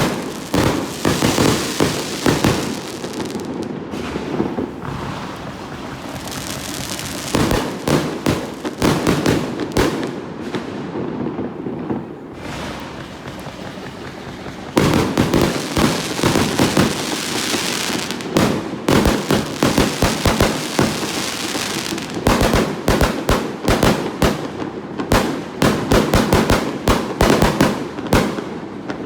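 Aerial fireworks going off in rapid, overlapping bangs and crackles. There are quieter spells of a few seconds, then from about halfway a dense, sustained barrage.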